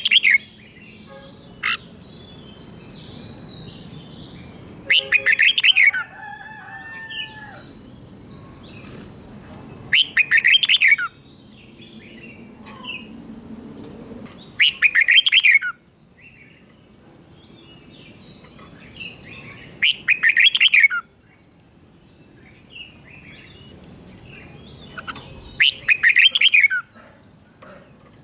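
Red-whiskered bulbul singing loud, short song phrases of about a second each, roughly every five seconds, six times, with fainter chirps between them.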